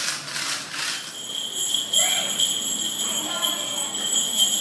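Jingle bells shaken steadily, ringing from about a second in after a brief rattling noise, with faint children's voices underneath.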